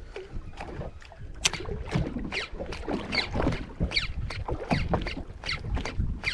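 Small water slaps and splashes against the hull of a drifting boat, coming irregularly about twice a second.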